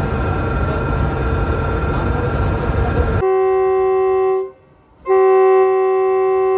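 Low rumbling station and locomotive noise. About three seconds in it gives way abruptly to a loud, steady diesel locomotive horn, which breaks off for half a second and then sounds again.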